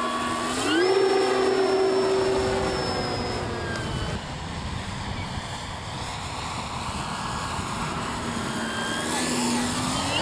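Electric ducted-fan RC model jet flying: a whine that rises sharply in pitch about a second in, holds, then fades and sinks lower through the middle, rising again near the end.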